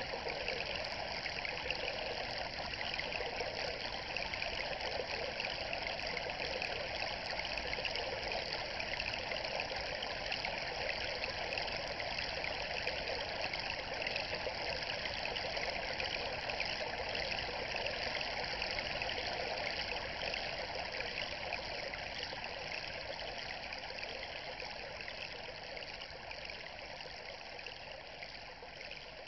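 Running water trickling and splashing in a steady flow, fading slowly over the last third.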